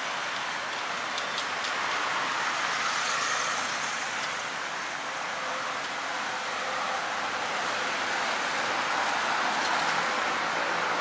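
Steady noise of road traffic, swelling and easing slowly as vehicles pass.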